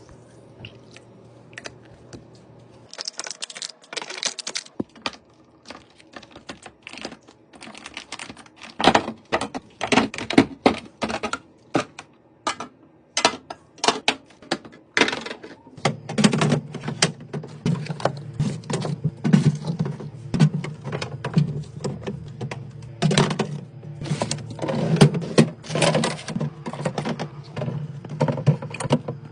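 Irregular clatter of groceries being set onto fridge shelves and into bins: many sharp clicks, knocks and taps of containers and packages. A steady low hum comes in about halfway through.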